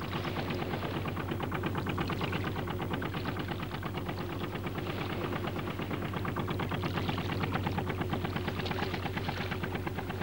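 Wooden junk's inboard engine chugging steadily: a rapid, even knocking over a low hum.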